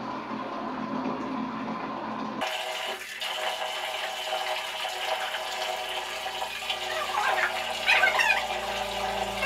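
Water running from a tap into a bucket and splashing as a puppy is shampooed. Background music comes in abruptly about two and a half seconds in.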